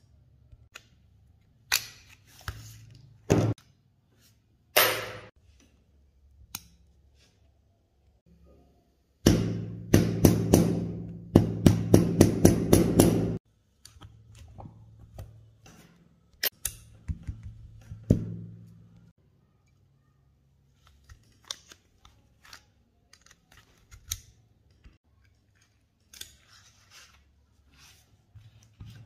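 Metal clicks and clacks of a stripped Astra 4000 Falcon pistol's slide, frame and small parts being handled and worked by hand. About nine seconds in comes a loud stretch of rapid metallic clacking and rasping lasting some four seconds, then sparser clicks.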